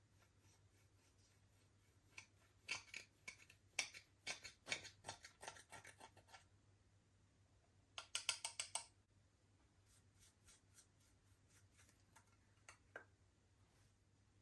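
Slime being squished and stretched by hand, giving rapid sticky clicks and crackles in two spells, a longer one from about two seconds in and a short dense burst around eight seconds, then a few faint clicks near the end.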